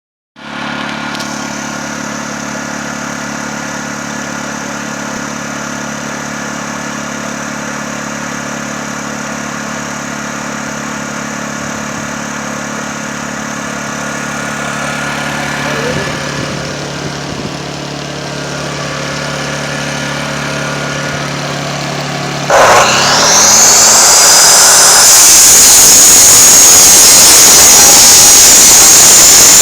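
A motor runs steadily; about 22 seconds in, a power tool switches on with a whine that climbs fast and settles into a loud, steady, high-pitched running note.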